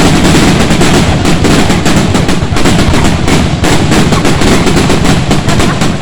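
A rapid barrage of fireworks going off: dense, loud crackling bangs close together with no let-up.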